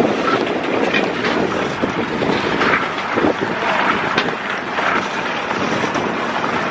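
Wind rushing over the microphone of a moving camera, a steady dense noise with faint voices under it.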